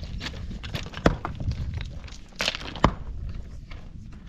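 Two loud, sharp knocks about a second and three-quarters apart, among lighter knocks and shuffling steps: hard objects being handled and set down.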